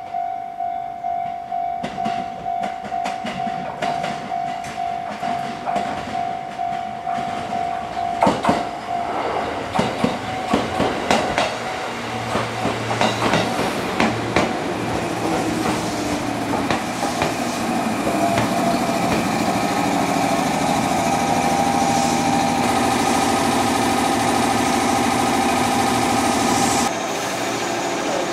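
A repeating warning tone sounds about twice a second. Then a JR 205 series electric train comes through with wheels clicking over the rail joints. Its traction motors and equipment then settle into a steady hum with gliding tones that grows louder and drops suddenly near the end.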